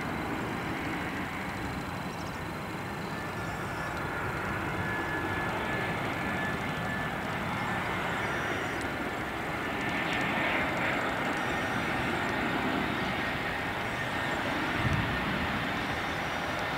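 Jet engines of an Airbus A319 airliner on final approach to land: a steady rushing roar with a faint high whine, slowly growing louder as the plane comes closer.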